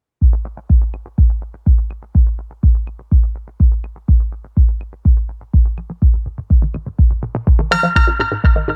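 Electronic dance music with a steady kick drum about two beats a second; synthesizer chords come in near the end.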